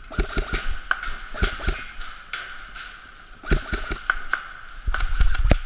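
Thumps and knocks of a person moving on foot with gear, close to a head-mounted microphone, coming about two to three a second with a pause around the middle, over a steady hiss.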